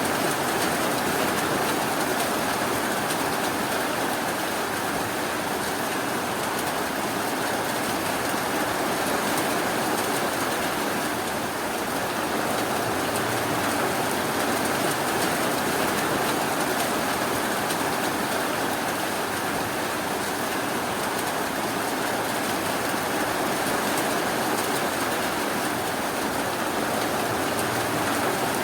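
Steady, even rainfall, an unbroken hiss with no separate drops or thunder standing out.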